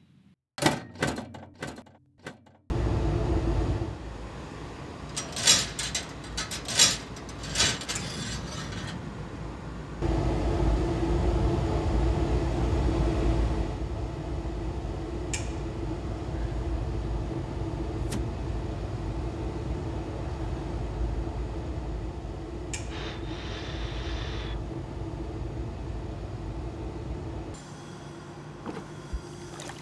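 Metalworking machine motor starting about three seconds in and running with a steady hum and low rumble. A run of short loud noises comes between about five and nine seconds in, and a few sharp clicks follow later.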